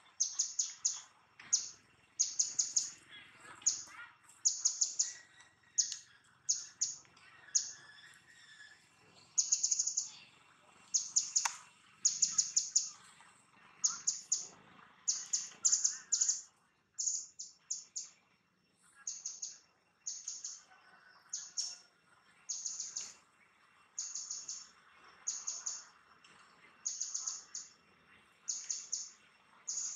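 A bird calling over and over: bursts of several quick, high-pitched chirps, repeating about once a second, over faint background noise.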